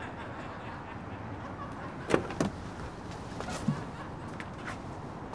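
Taxi car door sounds over a low, steady background: two sharp clacks a little after two seconds in, then a lighter knock at about three and a half seconds.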